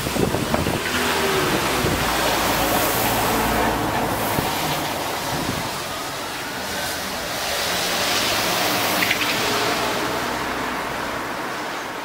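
Cars driving past over the level crossing, their tyre and engine noise swelling twice as they pass, with wind rumbling on the microphone.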